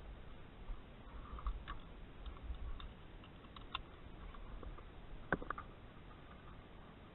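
Scattered light clicks and knocks of handling in a small aircraft cockpit, with one sharper click a little over five seconds in, over a low rumble.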